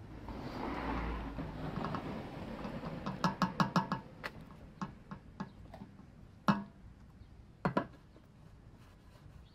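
Handling noises while waste motor oil is put into the engine through a funnel from a bucket: a soft rushing for the first few seconds, then a quick run of light clicks and several single knocks, two of them louder.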